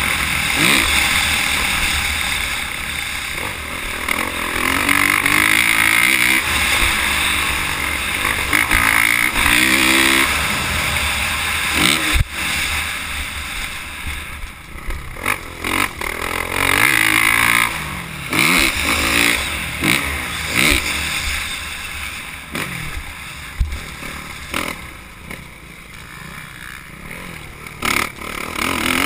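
Motocross bike engine ridden hard on a dirt track, heard close from an on-bike camera. It revs up in repeated rising sweeps and drops back between them, with wind buffeting and a sharp knock about twelve seconds in.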